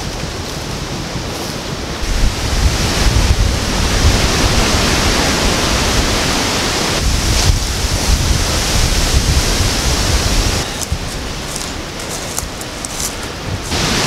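Gusty wind rushing through the forest canopy, with wind buffeting the microphone as a low rumble; it swells about two seconds in.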